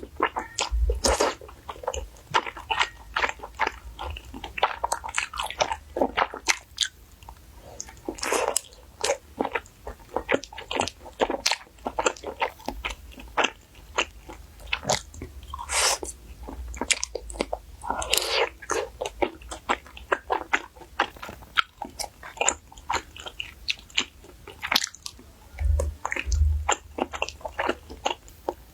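Close-miked eating of saucy wide starch noodles: wet chewing and lip smacks in an irregular run, with a few longer slurps.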